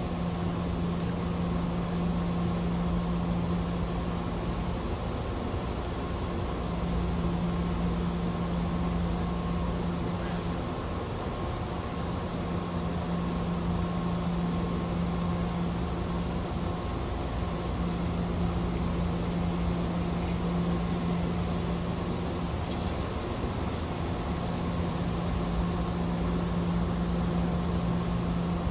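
Steady idling hum of vehicle engines with a low drone that fades out and comes back every five or six seconds.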